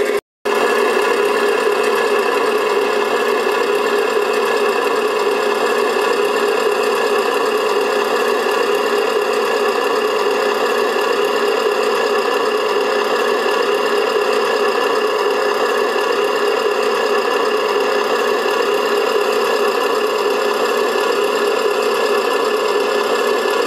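A 1/14-scale RC tipper truck running with a steady, unchanging mechanical hum made of several fixed tones.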